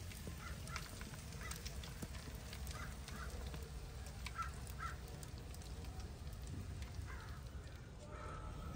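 Faint outdoor ambience: a steady low rumble with short, high bird calls scattered through the first five seconds or so, and a few faint clicks.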